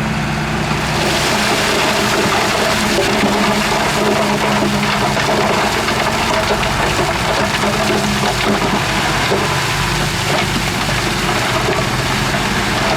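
Heavy diesel earthmoving machinery running steadily, with a loud rushing hiss of loose dirt sliding that starts about a second in. The engine's low note fades about two-thirds of the way through while the rushing goes on.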